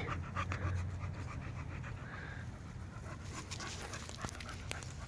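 A bully dog panting close by, a quick run of short breaths.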